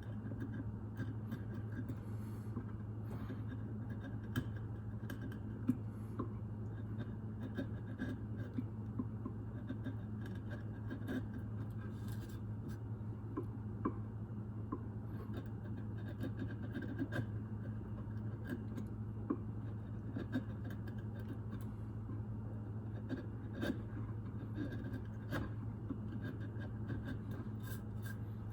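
A steady low hum with scattered small clicks and light scratching or rubbing, like small objects being handled and worked by hand.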